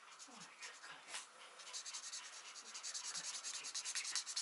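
A colouring pen scribbling back and forth on paper in quick, scratchy strokes, about eight a second, louder from about two seconds in.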